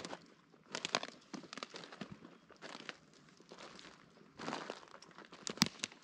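Footsteps crunching through dry fallen leaves at a walking pace, about one step a second, with the loudest crunch near the end.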